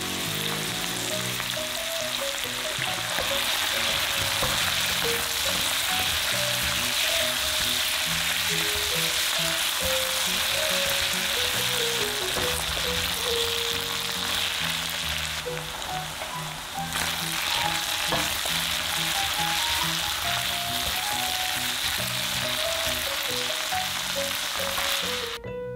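Sliced Korean zucchini and ground pork sizzling steadily in a frying pan as they are stir-fried. The sizzling cuts off abruptly just before the end.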